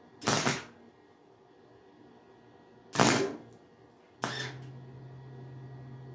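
Three short bursts of a small hobby wire-feed welder tack-welding thin sheet metal, each about a third of a second long. A steady low hum comes in with the third burst and carries on after it.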